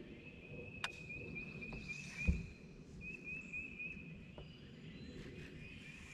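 Quiet outdoor ambience on open water: a faint, steady high-pitched whine that wavers slightly, with a single sharp click about a second in and a dull low thump a little past two seconds.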